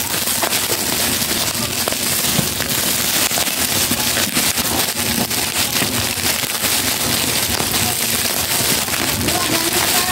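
Plastic bubble wrap crinkling and crackling continuously as it is handled and pulled open by hand.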